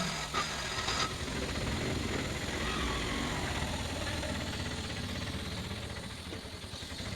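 An engine running steadily, with a couple of sharp knocks in the first second.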